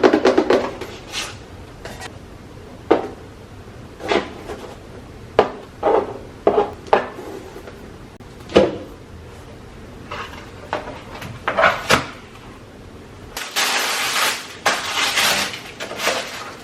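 Small hard objects being handled and set down: a series of separate clicks, knocks and light clinks, with a couple of seconds of rustling near the end.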